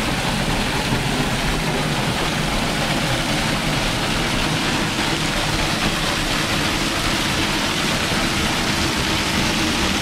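Small waterfall pouring onto rocks close to the microphone: a steady, loud rush of falling and splashing water.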